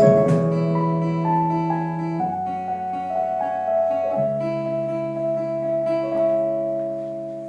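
Closing bars of a song played live on guitar: single notes picked one after another over held low notes, each ringing on. The music fades steadily away as the song ends.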